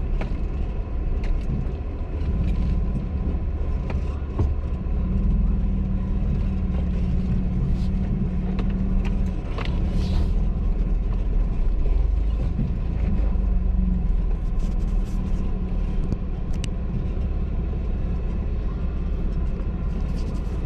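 Off-road vehicle running and driving, a steady low engine rumble with a wavering engine note, and scattered short knocks and rattles throughout.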